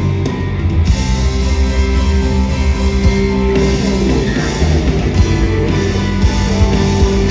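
Rock band playing: electric guitar over a drum kit, with held notes and a steady beat.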